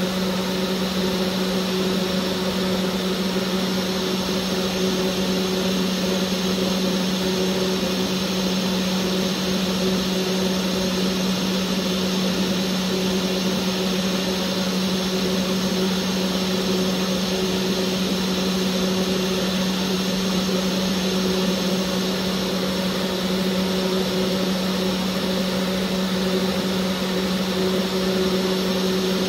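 High-speed engraving spindle running steadily as its engraving bit cuts a design into a black tube on a CNC-driven hobby lathe: an even motor hum with a constant hiss over it.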